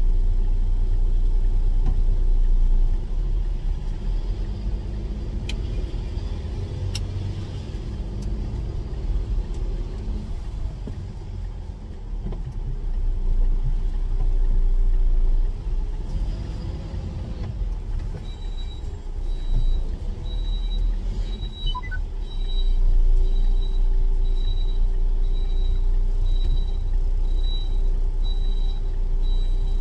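Renault truck's diesel engine running, heard from inside the cab while the truck moves slowly. About two-thirds of the way in, a repeated high beep starts, about two a second, and carries on to the end.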